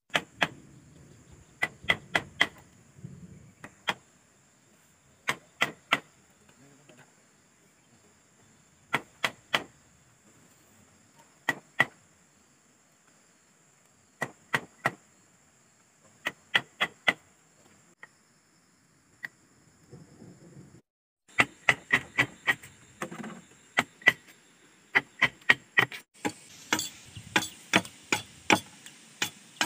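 Sharp, hollow knocks in quick groups of two to four as a metal chisel is struck into a green bamboo pole to cut a hole, each blow ringing briefly off the hollow bamboo. The blows come faster and closer together in the last third.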